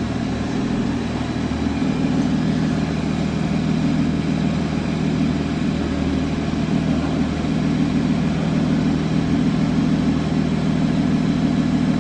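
2013 Porsche Boxster S's 3.4-litre flat-six engine idling with a steady low hum.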